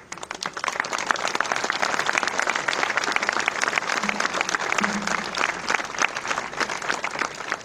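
An audience applauding, building up in the first second and dying away near the end.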